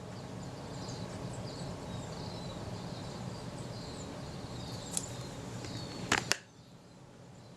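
Steady low background hum with faint high chirps, a small click about five seconds in, then two or three sharp clicks just after six seconds; the hum cuts off right after the clicks. The clicks fit small parts or tools being handled on a camera body.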